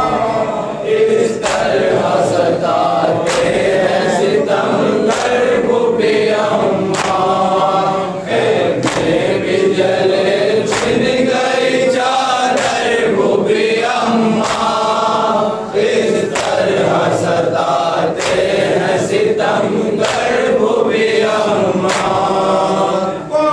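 A group of men singing a nauha, a Shia Muharram mourning chant, in unison, with sharp hand slaps of matam (chest-beating) about once a second keeping the beat.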